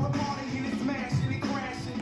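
Hip hop-style song playing, with a steady beat of about two pulses a second under a sung vocal melody.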